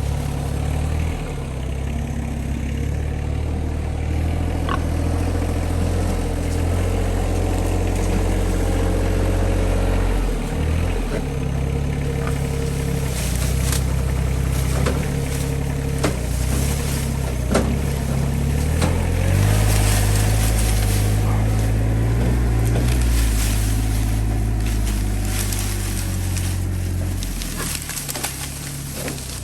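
Compact tractor engine running steadily, its engine speed shifting a few times.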